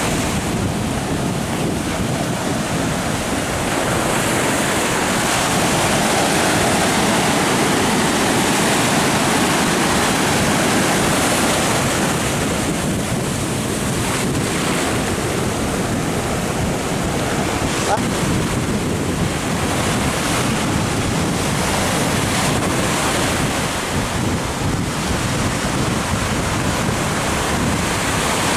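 Sea surf breaking and washing up a sandy, rocky shore in a steady wash of noise, with wind buffeting the microphone.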